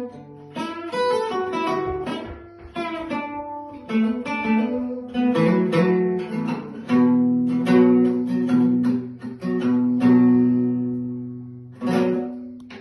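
Solo steel-string acoustic guitar played with picked notes and strummed chords, the chords left to ring and fade. A last strum comes about twelve seconds in and rings out.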